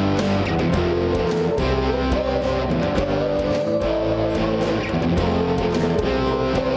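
Live worship band playing an instrumental passage: strummed electric guitar over a bass line and a steady beat with cymbal strokes.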